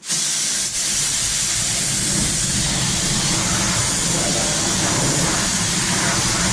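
Pneumatic spray gun spraying glue: a loud, steady hiss of compressed air and atomised adhesive that starts suddenly, with a brief dip under a second in.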